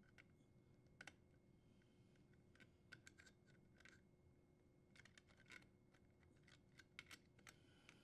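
Faint metallic clicks and scrapes of needle-nose pliers working a strain relief nut loose on a dishwasher's sheet-metal junction box, against near silence. The clicks are sparse at first and come more often in the second half.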